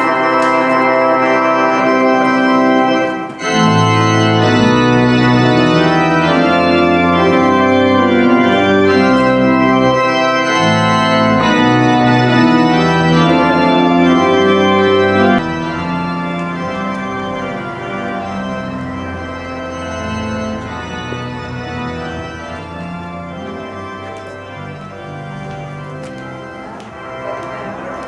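Organ music: sustained chords that pause briefly a little over three seconds in, then grow quieter about halfway through.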